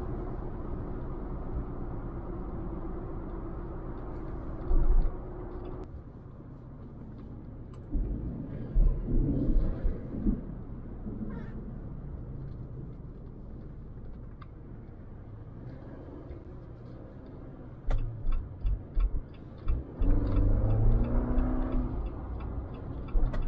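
A Jeep Wrangler JL's engine and road noise heard from inside the cabin while driving, with the air intake drawing through a newly fitted low-mount snorkel. Several heavy low thumps come through at times, and near the end the engine note rises as it accelerates.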